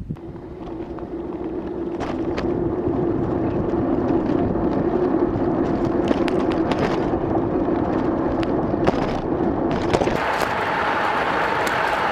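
Scooter wheels rolling on a hard road surface: a steady hum with scattered clicks and knocks from bumps. About ten seconds in the hum shifts to a higher pitch.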